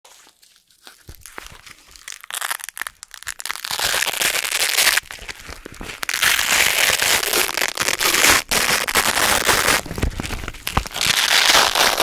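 Black hook-and-loop (Velcro) strips being slowly peeled apart by hand: a dense crackling rip that starts faintly about a second in, grows loud within a few seconds and runs on with a few short breaks.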